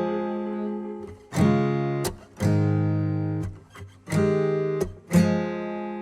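Background music: acoustic guitar strumming chords, about one strum a second, each chord ringing out and fading.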